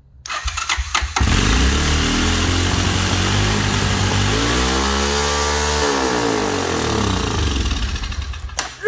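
ATV engine started with the choke held: it cranks for about a second, catches, and runs fast because the throttle is still stuck partway open. Its speed rises and falls once in the middle.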